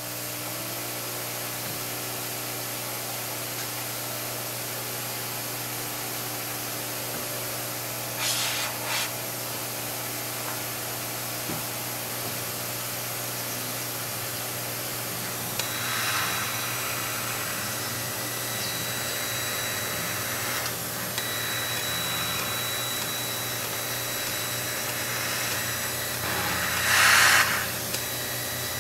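CO2 laser cutter switched on: a steady hum with hiss from its fans and air pump starts abruptly. About halfway through the cut begins, adding a high whine and the sound of the laser head moving on its gantry, with a loud hissing burst near the end.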